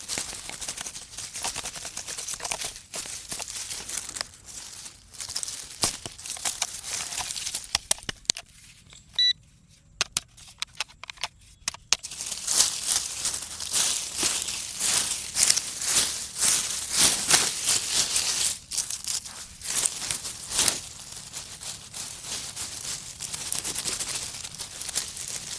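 Crackling, crinkling noise with many sharp clicks, with a few short beeps about nine seconds in.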